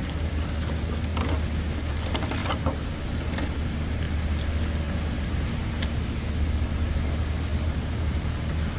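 Steady low hum inside a car's cabin, with a few light clicks and rustles of a trading-card deck box and cards being handled.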